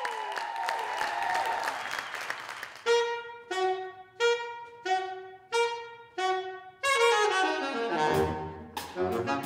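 Alto saxophone played through a Digitech Whammy pitch-shifting pedal: swooping pitch bends over light cymbal taps, then a riff of short, clipped notes repeated in an even two-note figure, then a long falling glide. A drum kit comes in underneath near the end.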